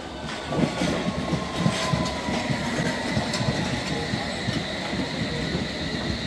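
Electric multiple-unit train moving along the platform, its rumble joined by a whine that falls in pitch over the first few seconds and a steady high squeal, with a few clacks of wheels over rail joints.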